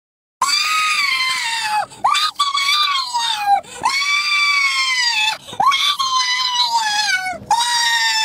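A woman screaming over and over, starting about half a second in: five long, very high-pitched screams, each sliding down in pitch, with short breaks between. The last one levels off and is held steady.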